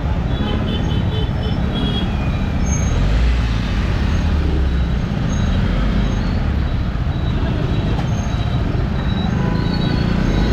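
Steady road and traffic noise picked up while riding a motorcycle, with a heavy low rumble.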